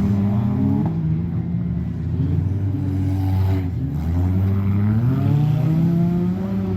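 Several off-road race vehicles' engines running and revving together, their pitches rising and falling as they accelerate and lift off.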